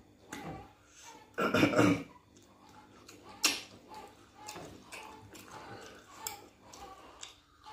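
Close-mic'd eating sounds of people eating pounded yam and pepper soup by hand: wet chewing, lip smacks and sucking clicks. One loud, rough throat sound comes about a second and a half in, and a sharp click a couple of seconds later.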